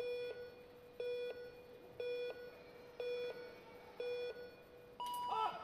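Electronic start countdown of a track-cycling start gate: five short beeps exactly a second apart, then a longer, higher tone about five seconds in that signals the start as the gates release the riders.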